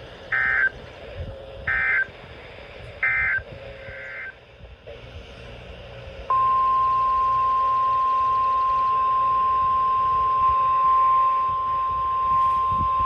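Emergency Alert System digital data tones from NOAA Weather Radio: four short, shrill warbling bursts about a second apart. About six seconds in, a single steady alarm tone of about 1 kHz starts and holds; this is the weather-radio warning alert tone that precedes a new warning.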